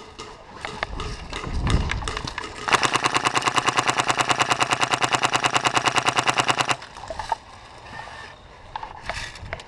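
Polarstar HPA-powered airsoft RPK firing one long full-auto burst of about four seconds, a rapid, even string of shots that starts and stops sharply. A few scattered knocks come before it and faint clicks after it.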